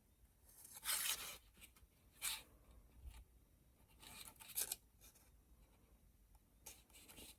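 Fabric strips being handled on a glued box: a few short, faint scrapes and rustles, the loudest about a second in, with others a second or two apart.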